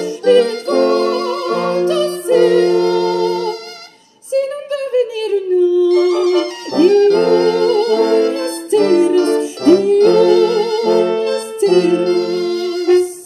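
A cobla wind band playing sustained chords under classically trained voices singing with vibrato. About four seconds in the music breaks off briefly, then resumes with a voice sliding down in pitch.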